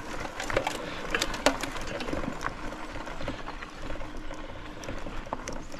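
A small motorbike ridden slowly over a rough track: a faint steady motor hum under crunching and many scattered clicks and rattles.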